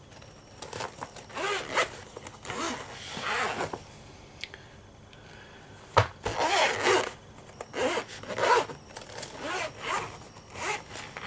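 Zipper of a large zip-around pen case being drawn open in a series of short rasping pulls, with a sharp click about six seconds in.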